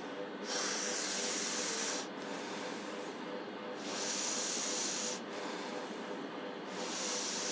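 A woman taking three slow, deep breaths close to a lapel microphone, each a rush of air lasting about a second and a half, with pauses between: a paced meditation breathing exercise.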